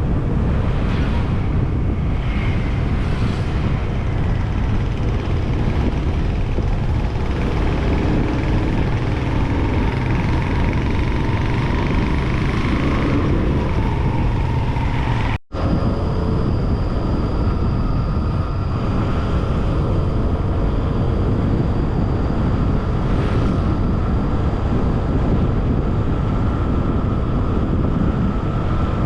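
Wind rushing over the microphone on a moving Honda Scoopy scooter, with the scooter's small engine running under it and a faint steady whine. The sound breaks off for an instant about halfway through, then carries on the same.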